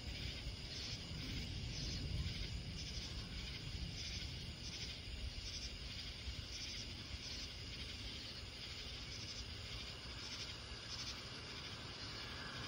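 Night insects calling in a steady, evenly pulsing chorus over a low rumble of distant thunder. Near the end a hiss starts to rise as the Amtrak train approaches.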